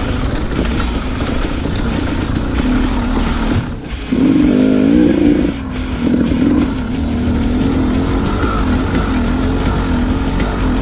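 Dirt bike engine running under the rider, its revs rising and falling with the throttle; about four seconds in it drops briefly, then revs up sharply before settling back to a wavering pull.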